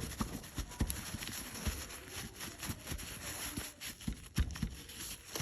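Irregular light knocks and clicks, a few a second, over a steady hiss.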